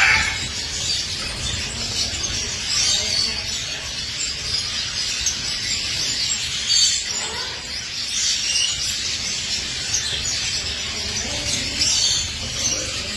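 Red siskin chirping and twittering: a stream of short, high, scattered calls over a steady low hum.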